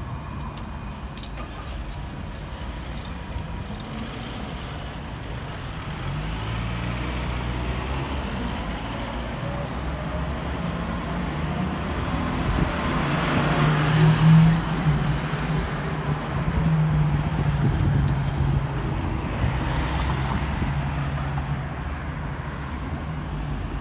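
City street traffic: motor vehicles driving past with a steady engine hum. One passes close about halfway through, where it is loudest, and it fades toward the end.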